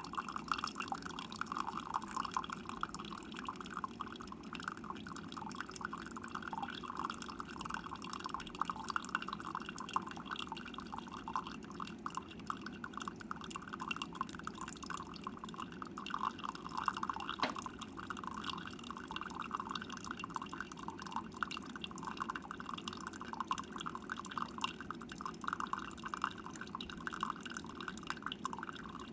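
Instant Solo single-serve coffee maker brewing: coffee streams and drips into the mug in a steady patter, with a single click about midway.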